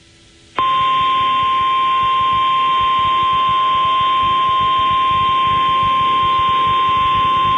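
Emergency Alert System attention tone broadcast over FM radio: a single steady, high-pitched tone that starts about half a second in and holds, over a hiss of broadcast noise. It is the alarm that announces a warning message.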